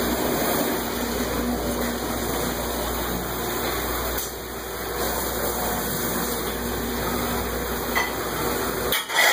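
Steady rushing noise of running water with a faint low hum underneath, as in a working commercial dishwashing area; it cuts off abruptly near the end.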